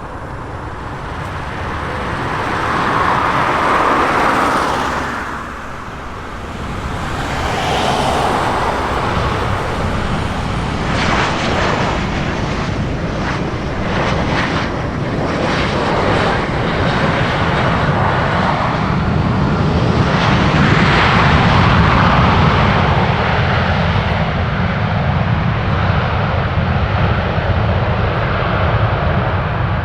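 Jet airliner's engines heard close by as the aircraft passes: a loud rumble that swells and eases several times, with a crackly stretch in the middle.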